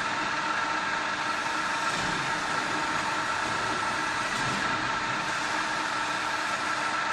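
LM1450C milling machine running with no cutting: a steady mechanical whir from its motor and gearing, with a few held tones over the noise.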